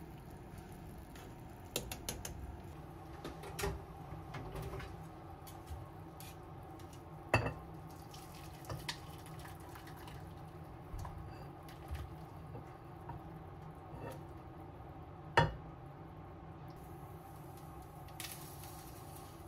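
Kitchen cooking sounds: chopsticks clinking and scraping against a small metal saucepan of soup, and the pan knocking against a ceramic bowl as the soup is poured out. Scattered sharp clinks sound over a steady low hum; two stand out, one about a third of the way in and a louder one near the end.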